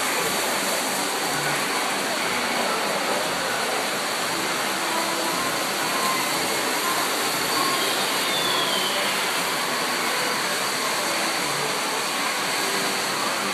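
Steady rushing background noise of a model train display room, with faint low thuds recurring irregularly beneath it.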